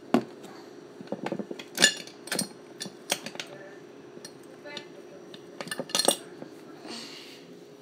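A utensil clinking and knocking irregularly against a mixing bowl, with a short hiss about seven seconds in.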